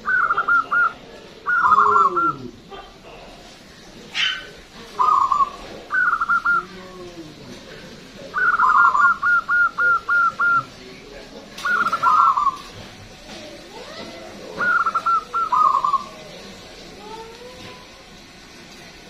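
Caged zebra dove (perkutut) singing its cooing song in about seven separate phrases, each a quick stuttering run of notes. A long run of about eight notes comes near the middle. Fainter, lower calls sound between the phrases.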